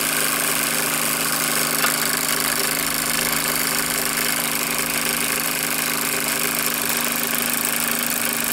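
Bowman M135 toy steam engine running steadily at speed: an even hiss of steam over a fast mechanical rattle, with one sharp click about two seconds in.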